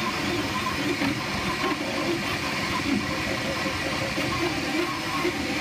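Flashforge Dreamer 3D printer running a print: its stepper motors whir in short, shifting tones as the extruder traces small circles, over a steady hiss.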